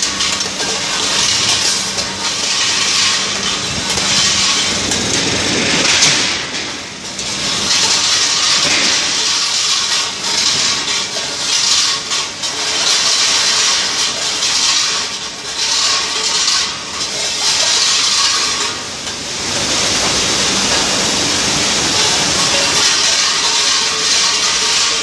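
Canning production line machinery running: a loud hissing, rushing din that swells and dips every second or two, then holds steady for the last few seconds.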